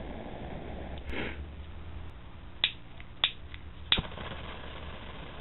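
Piezo igniter of a butane lighter tuned for a long flame clicking three times, about two-thirds of a second apart, with the flame catching after the last click. A short gas hiss comes about a second in, over a low steady rumble.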